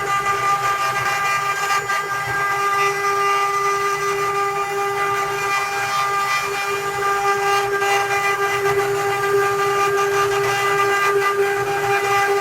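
Spindle of a 3D wood-carving CNC router running at steady speed: a constant high whine with evenly spaced overtones, over a continuous hiss.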